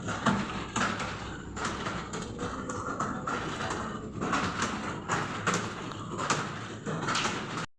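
Computer keyboard keys being typed on: irregular clicks, about two a second, over a steady background hum. It cuts off suddenly near the end.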